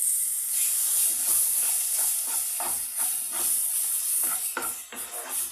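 Besan roasting in hot ghee sizzles in a nonstick kadhai while freshly added mawa is stirred in with a wooden spatula. The spatula scrapes and knocks the pan in repeated quick strokes over a steady high hiss.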